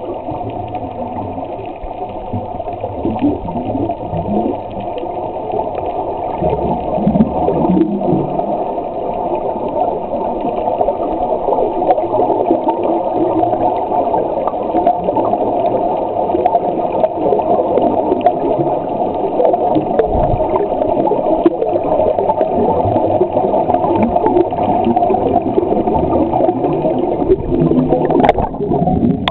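Muffled underwater noise picked up through a camera's waterproof housing: a steady rush of water with the crackle of rising air bubbles, and a brief rising whine about a second before the end.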